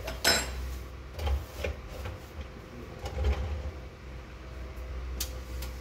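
Kitchen clean-up: a sharp ringing clink about a third of a second in, then scattered light knocks and handling of utensils on the counter, over a steady low hum.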